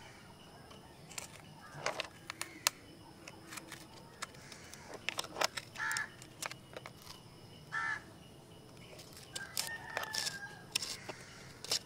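Pencil tip tapping and scratching against a plastic pencil box: a scattering of sharp little clicks and scrapes. A few short bird calls sound in the background, about six and eight seconds in and again near ten seconds.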